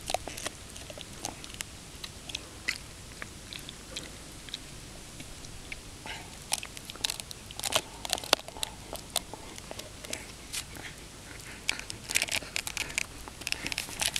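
German Shepherd gnawing a large bone: irregular sharp cracks and crunches of teeth on bone, coming thickest about halfway through and again near the end.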